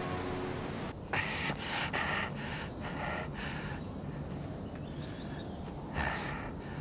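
A person breathing hard: a run of short noisy breaths about a second in, then quieter, with one more breath near the end.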